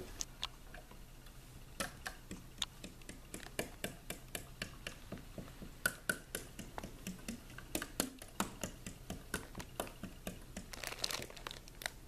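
Irregular light clicks and taps, several a second, over a faint steady low hum.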